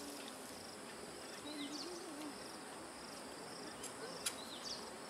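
Outdoor ambience of insects trilling in short repeated buzzes, with occasional short downward bird chirps. A single sharp click or knock comes a little past four seconds in.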